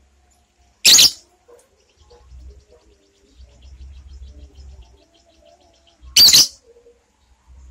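Lovebird giving two loud, shrill shrieks about five seconds apart. A soft, rapid chatter runs between them.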